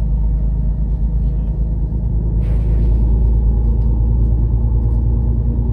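Intercity coach driving on the road, a loud steady low engine and road rumble heard from inside the passenger cabin.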